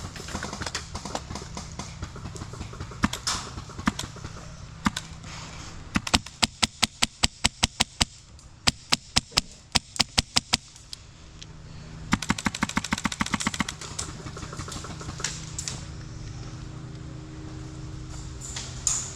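Airsoft rifle firing: two strings of rapid single shots at about six a second, then a short faster full-auto burst about twelve seconds in.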